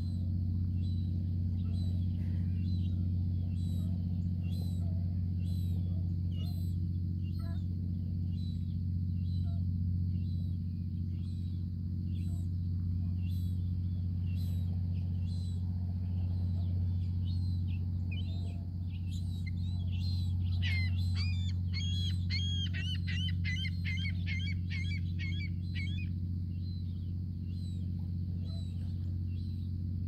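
Juvenile gull begging with thin, high, repeated calls that swell into a rapid run for several seconds past the middle. A steady low hum runs underneath.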